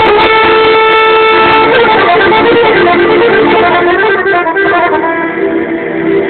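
Live Romani band music: a long held lead note over accompaniment, then quicker changing notes.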